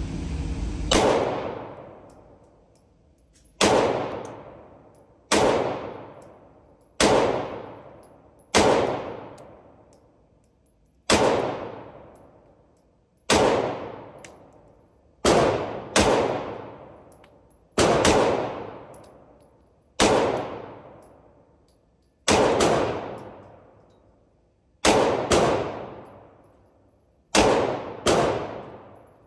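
Handgun fired one shot at a time in an indoor range, about eighteen shots spaced one to two and a half seconds apart, each a sharp crack followed by a long echoing tail.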